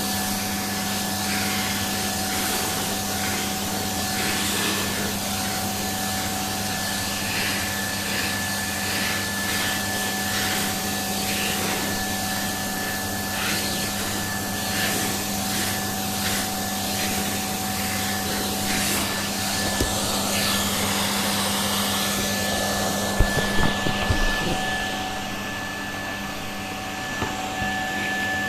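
Vacuum cleaner running steadily as it is passed over a dog's coat, its hiss swelling and easing in strokes about once a second. A few knocks come near the end, and then the sound turns briefly duller.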